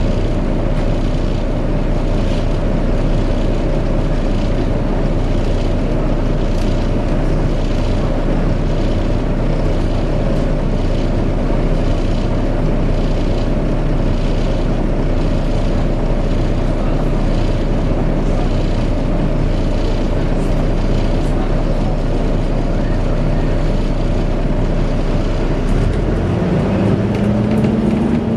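Volvo B7TL bus's diesel engine cooling fan running with a steady, vacuum-cleaner-like whine over the engine's rumble. About two seconds before the end, the engine note begins to climb.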